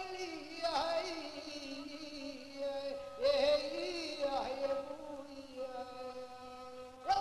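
Arabic folk song sung in long, wavering held notes that bend up and down in pitch, in the Middle Eastern style.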